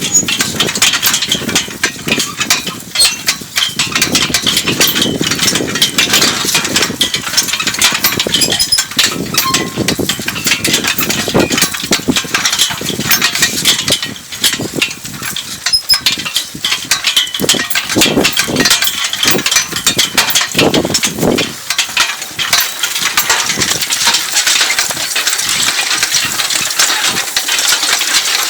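Steady metallic rattling and clinking of a horse-drawn IH cultivator and its harness as a four-horse team pulls it through the soil.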